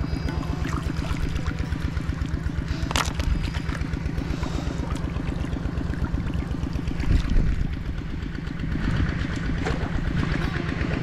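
A small engine running steadily at a fast, even beat, briefly louder about seven seconds in.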